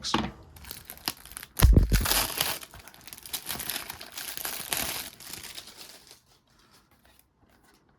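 Cellophane shrink-wrap crinkling as it is torn and peeled off a sealed DVD case, for about six seconds, with a dull thump about two seconds in.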